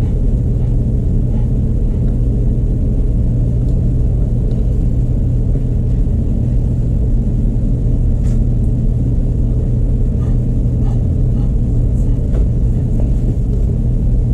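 A steady low rumbling drone, with a few faint light clicks of small metal parts being handled partway through.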